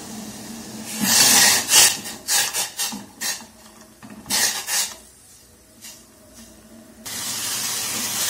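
Metal spoon stirring and scraping in a stainless steel pot of coffee, a quick run of scrapes between one and three seconds in and a few more around four and a half seconds. Near the end a steady hiss of the liquid coming to the boil starts and cuts off abruptly.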